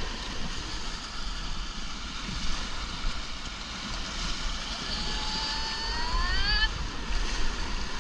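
Steady rush of whitewater on a river running about 7000 cfs. About five seconds in comes a single high call lasting under two seconds that rises in pitch.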